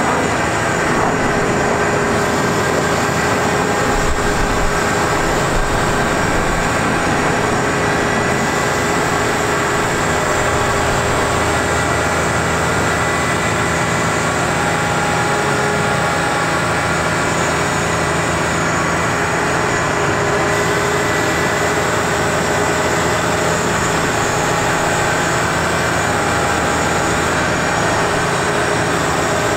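Truck's Caterpillar C7 diesel engine running steadily under load, powering the hydraulic digger auger on the knuckleboom crane as it bores into the soil.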